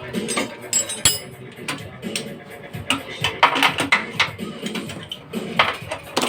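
Metal tools and parts clinking and knocking against each other, irregular sharp clinks several times a second, busiest a little past the middle.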